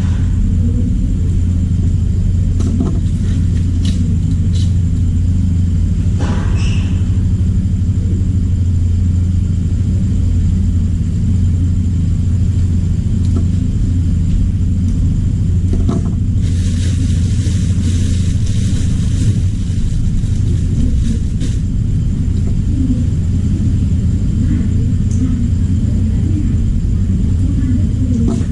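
Steady low hum throughout, with a few scattered light clicks and a stretch of hiss lasting about five seconds past the middle.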